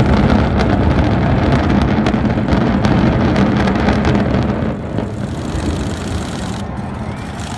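Deep rumble of a high-rise apartment tower collapsing in a controlled explosive demolition, heard from a distance, with scattered crackles of falling debris. The rumble is loudest at first and slowly fades from about five seconds in.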